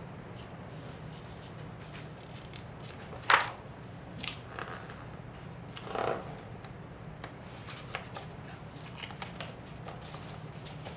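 Pages of a hardcover picture book being turned and handled, with a sharp page flip about three seconds in and softer paper rustles around four and six seconds. A steady low hum runs underneath.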